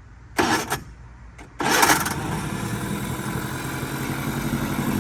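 2002 Mercury 15 hp two-stroke outboard motor being started: a short first attempt about half a second in, then it catches about a second and a half in and settles into steady running, with its lower unit in a trash can of water.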